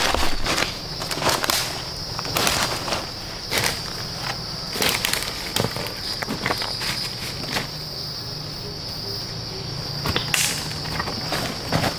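Insects keep up a steady high-pitched chirring, with irregular close crackles and knocks over it.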